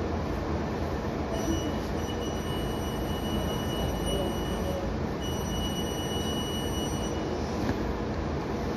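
Steady rumble of a moving vehicle, with a thin high whine that comes in about a second and a half in, drops out briefly around five seconds, and stops near seven seconds.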